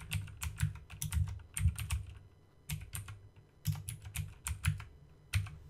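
Typing on a computer keyboard: quick runs of keystrokes, with a short pause about halfway through.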